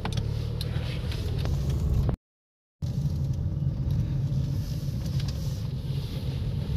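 Car engine and road rumble heard from inside the cabin as the car drives slowly out of a car park. The sound cuts out completely for about half a second a little over two seconds in.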